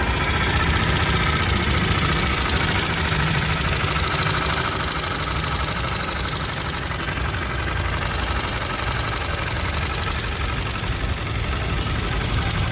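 Honda CBR250R's single-cylinder engine idling with a harsh, dirty mechanical knock. It is the sign of a worn camshaft and rocker arm whose rocker bearing has broken apart.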